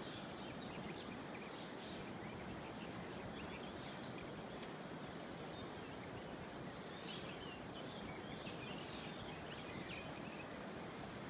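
Steady rushing of a river in flood, with small birds chirping now and then over it, busiest about two-thirds of the way through.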